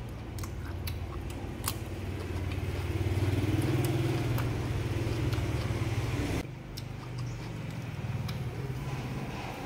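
Crisp crunching of a raw cucumber being bitten and chewed close to the microphone, with sharp crunches mostly in the first two seconds. Under it runs a steady low hum, loudest in the middle, that cuts off suddenly about six and a half seconds in.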